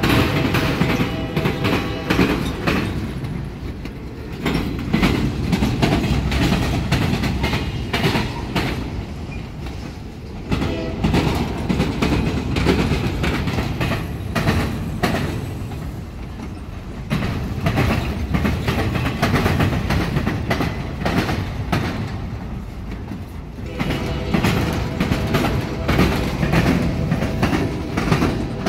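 Freight train rolling slowly through a double diamond crossing, its steel wheels clattering and banging over the diamond's rail gaps. The clatter swells and eases about every six or seven seconds as each car's wheel sets pass over.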